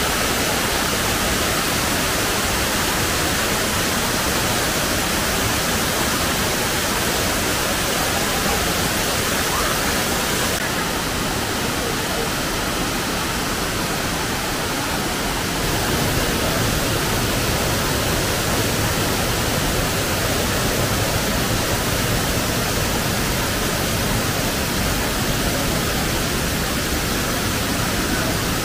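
Steady, loud rush of water from a waterfall close by, a drop of almost 100 feet.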